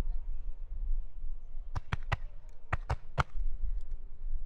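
Fireworks shells bursting: a quick run of about six sharp bangs starting about two seconds in, over a steady low rumble.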